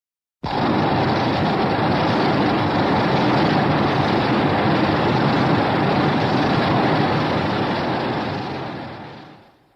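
A Heisei-era Godzilla film sound effect: a loud, steady rushing noise with no clear pitch. It starts abruptly about half a second in and fades away near the end.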